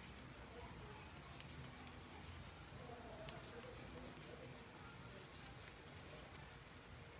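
Faint scratching and scattered light ticks of a metal crochet hook working yarn, stitch by stitch, over low room noise.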